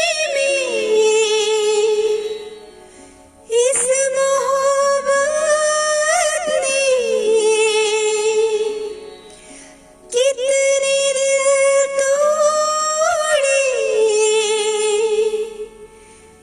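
A woman singing long held notes in three phrases. Each phrase steps down to a lower note and fades before a short pause, over a soft steady accompaniment.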